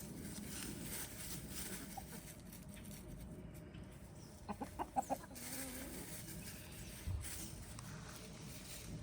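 Backyard chickens clucking: a quick run of short clucks about halfway through, over a faint steady background.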